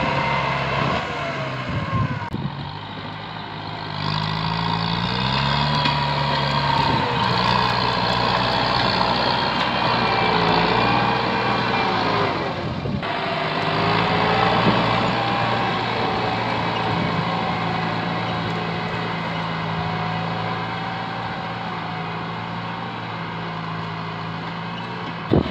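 Kubota tractor's diesel engine working steadily while pulling a disc plough through brush, its note climbing about five seconds in. The sound jumps abruptly twice.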